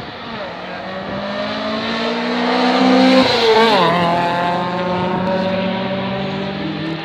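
A pack of rallycross cars racing past at full throttle, several engines sounding at once. They grow louder to a peak about three seconds in, drop sharply in pitch as they pass, then fade as they pull away.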